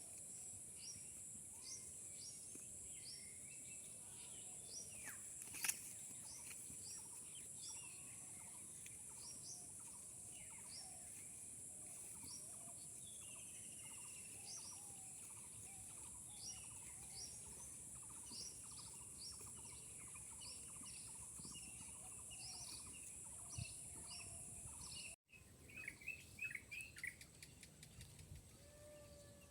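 Small birds chirping over and over, short high chirps about once or twice a second, over a steady high-pitched hiss. About three-quarters of the way through the sound cuts out abruptly and resumes with a different flurry of chirps.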